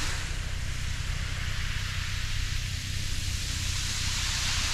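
Wind rumbling on the camera microphone over a steady hiss of small waves washing onto a shingle beach.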